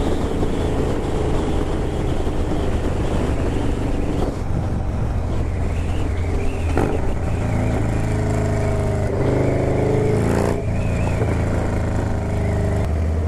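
Motorcycle engine idling steadily, with a few sharp fireworks bangs about four, seven and ten and a half seconds in.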